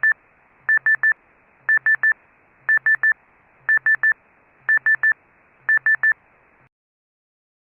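Electronic beep tone: three quick high beeps, repeated about once a second over a faint line hiss, cutting off suddenly about a second before the end.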